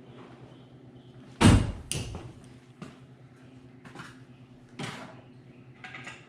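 Handling noise of hand tools and small wiring parts being picked up and set down: a loud knock about a second and a half in, a second knock just after and a few lighter clicks, over a faint steady hum.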